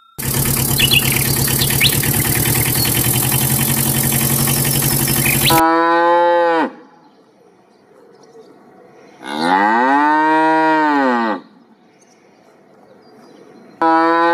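Cattle mooing: a loud, harsh, dense bellowing for about five seconds, then three separate moos, the middle one longer and rising then falling in pitch, the last starting near the end.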